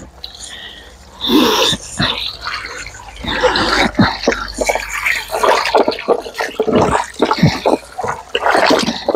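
Water sloshing and splashing in irregular bursts as a packet of meat is washed by hand in a container of water.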